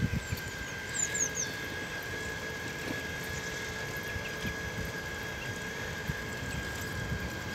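Quiet outdoor ambience: a steady faint hum with a thin high tone, and a few short, high, falling chirps about a second in.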